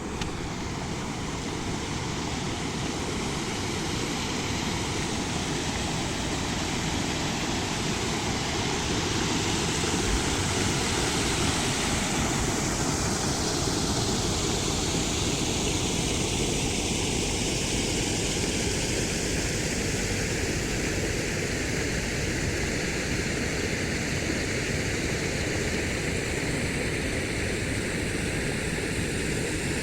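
Waterfall rushing: a steady, even rush of falling water whose tone shifts slowly.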